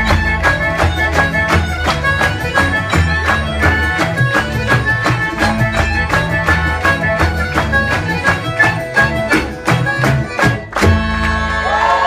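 Irish traditional band playing a fast tune live, with a steady drum beat, guitar and a high melody line. The tune ends on a final hit near the end, and audience applause and cheering start.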